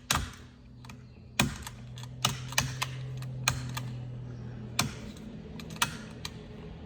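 Sharp, irregular clicks and knocks of pliers and hand work on a chainsaw's choke parts, about seven in all, over a steady low hum.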